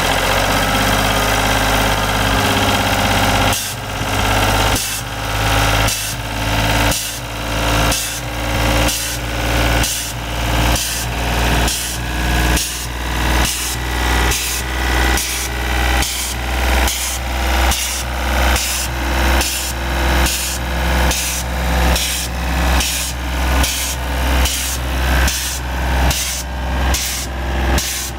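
Atlas Copco mobile compressor's three-cylinder Deutz F3M 1011 F diesel engine running. It is steady for the first few seconds, then settles into a regular pulsing about once a second.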